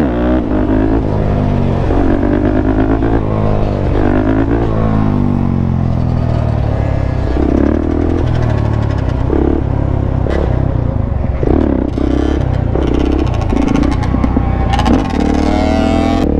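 Suzuki DRZ400SM supermoto's single-cylinder four-stroke engine under way, revving up and falling back over and over as it pulls through the gears, with other dirt bikes running nearby.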